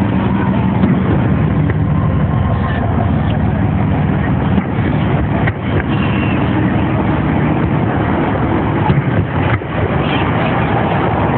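A few sharp bangs from distant fireworks over a steady low rumble.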